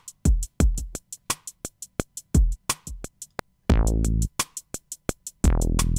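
Programmed hip-hop drum-machine beat playing back. A fast run of hi-hat ticks, about five a second, runs over kick hits that drop in pitch. Partway through come long, heavy 808 bass notes that slide downward in pitch.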